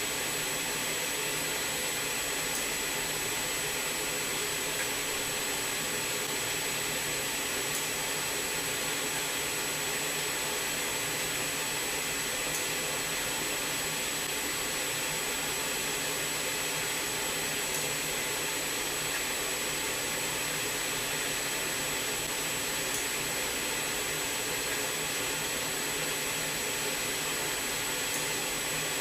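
Steady machinery noise: an even mechanical hum and hiss with a thin high whine, unchanging throughout.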